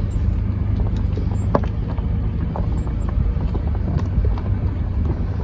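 Car moving, heard from inside: a steady low rumble of engine and road noise, with a few faint clicks.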